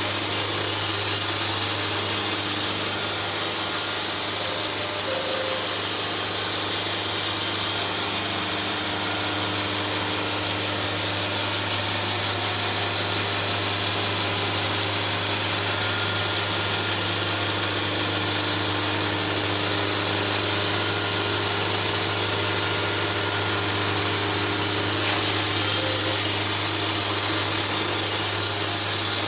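Portable sawmill cutting through a log: the mill's engine runs at a steady pitch under the constant hiss of the blade in the wood.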